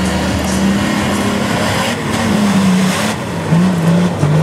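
Off-road SUV's engine running under load in mud, held at fairly steady revs, then revved up and down in a few quick blips near the end.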